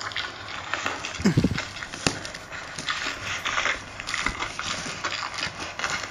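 Packaging of a shipped parcel being torn and pulled open by hand: crackling, crinkling plastic and cardboard with many small snaps, a sharp snap about two seconds in, and a brief low squeak about a second in.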